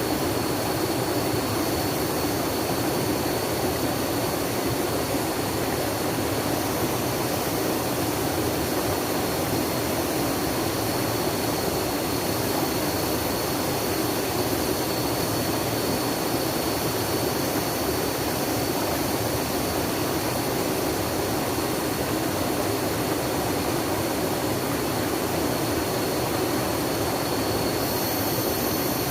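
Flowing water rushing steadily in an even, unbroken noise, with a thin steady high tone running above it.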